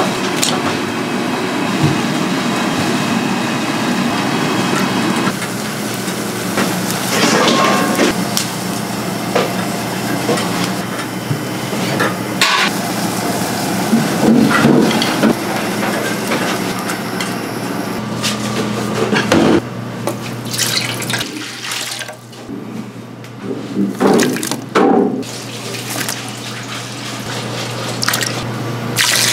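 Gas burner flame running under a wire grill rack while green onions char, with scattered clicks of metal tongs. Near the end, water is poured into a large metal stockpot.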